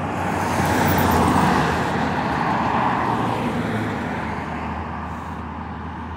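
A pickup truck and a car passing by on the road: tyre and engine noise swells to its loudest about a second in, then slowly fades away.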